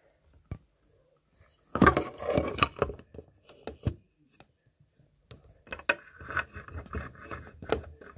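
Handling noise from a phone held against fingers and an arm: skin and fingers rubbing and knocking on the phone near its microphone. There is a loud scuffle about two seconds in, scattered clicks, and more rubbing near the end.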